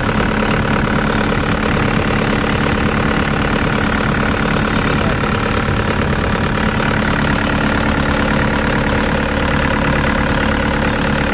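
2015 Hitachi ZX55UR-3 mini excavator's diesel engine idling steadily.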